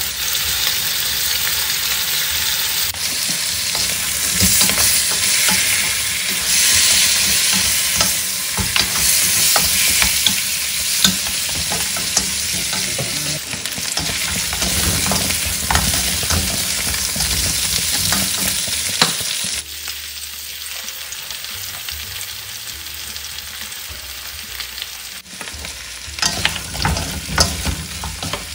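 Pork bones searing in a hot wok, a steady sizzle with wooden spatulas scraping and knocking against the pan as the meat is turned. The sizzle drops quieter for a few seconds about two-thirds of the way through, then the knocks come thicker near the end.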